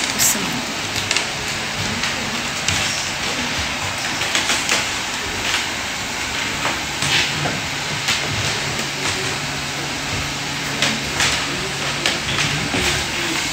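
Steady noisy background with scattered light clicks and knocks, and a faint low hum in the second half.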